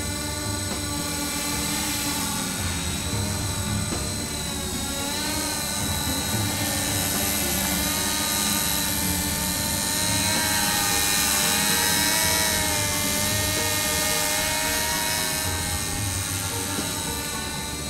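Scarab Avatar multicopter's electric motors and propellers whining and buzzing in flight, the pitch wavering up and down as the throttle changes.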